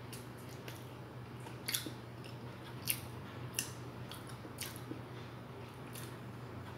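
A person chewing food close to the microphone: faint mouth sounds with scattered small sharp clicks, over a steady low hum.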